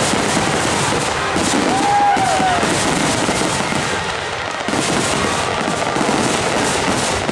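Fireworks finale: a dense, unbroken barrage of aerial shell bursts and crackle, the reports running into one another with no pause.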